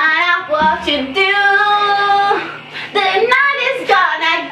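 A young woman singing loudly without accompaniment; she holds one long note for about a second, starting about a second in.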